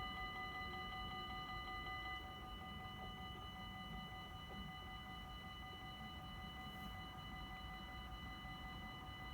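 Warning bells of a Dutch automatic half-barrier level crossing ringing continuously, their rapid strokes blending into a steady, fairly faint multi-toned ring.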